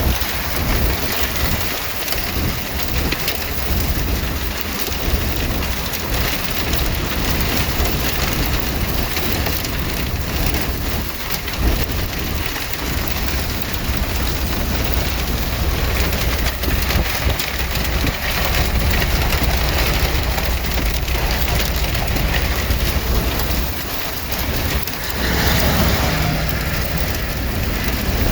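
Heavy rain pouring in a storm: a steady, loud rush of noise with a deep rumble underneath.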